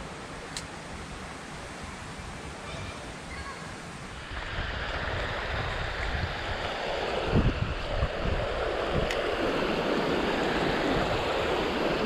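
Rushing water of a rocky mountain stream flowing over shallow rapids, a steady rush that grows louder about four seconds in, with some wind rumble on the microphone.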